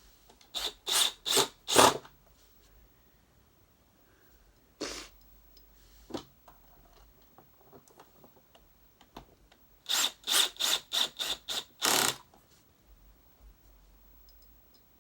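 Power screwdriver driving screws into the vacuum's plastic hood in short bursts: four quick ones at the start, one about five seconds in, and a run of about seven near the end.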